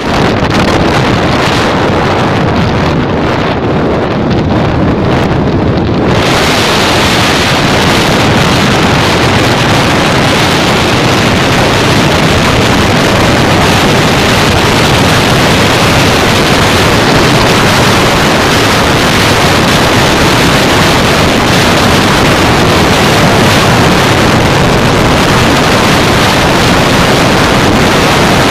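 Loud, steady wind buffeting on the microphone over the Bajaj Pulsar 220's single-cylinder engine and road noise at highway speed. About six seconds in the sound turns brighter and hissier and stays so.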